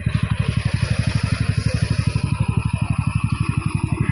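An engine running steadily at idle, a rapid, even low thudding of about fourteen beats a second with some hiss above it.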